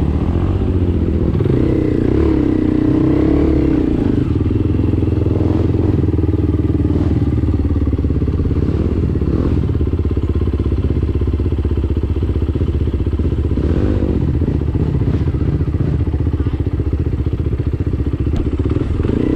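Enduro dirt bike engine running steadily, its pitch wavering a few times as the throttle changes.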